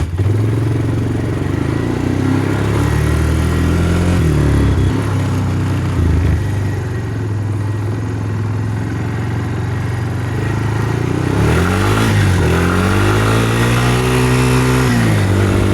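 Small engines of a four-wheeler and a pulley-swapped riding lawnmower running hard, their pitch rising and falling as they speed up and ease off. A long climb in pitch about three-quarters of the way through drops away near the end.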